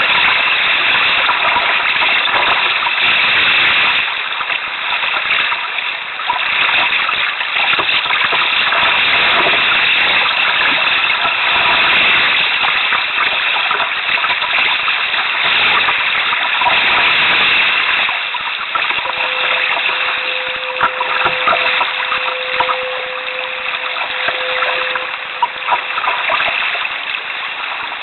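Choppy sea water rushing and splashing against a canoe's hull, a steady loud hiss. Past the middle a steady tone holds for about six seconds, and near the end there are a few sharp knocks.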